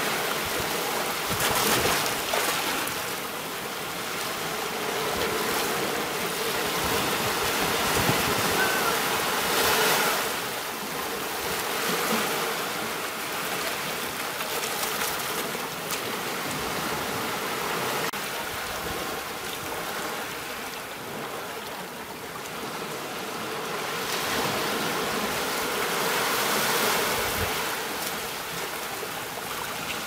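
Ocean surf: small waves breaking and washing up the shore, the rush of water swelling and easing every several seconds.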